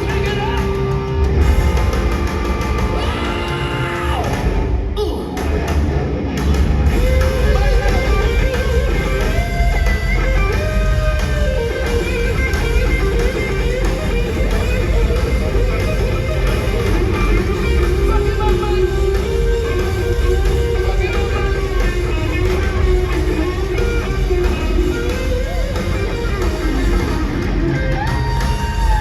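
Live hard rock band playing, led by electric guitar over a heavy bass and drum backing.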